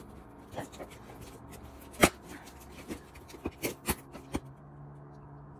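A cardboard shipping box being worked open: scattered handling knocks and clicks, one sharp knock about two seconds in and a quick run of them a little after the middle. The box is very securely taped and hard to get open.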